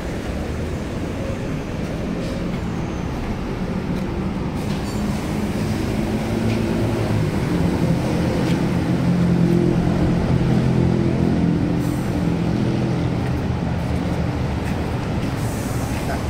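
Steady low vehicle rumble, like an engine running, that swells in the middle and eases off near the end, with a few faint clicks.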